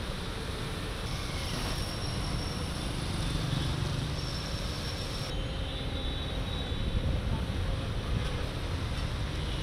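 Street traffic driving through floodwater: vehicle engines running with a steady low rumble and water washing and splashing around the wheels, the sound shifting abruptly a few times between takes.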